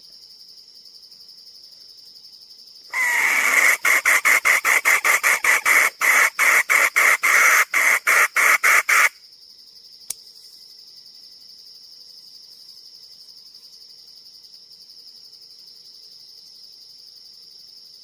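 Jungle fowl hen calling: a loud, harsh cackle of rapid clucks, about three to four a second and quickening, starting about three seconds in and lasting some six seconds. A steady high insect drone runs underneath.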